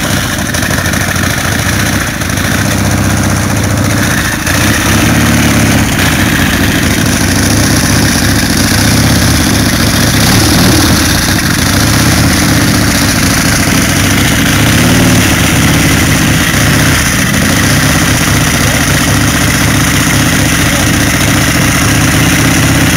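Stroker Harley-Davidson V-twin chopper with an S&S engine running loud at low speed, its note rising and falling with the throttle.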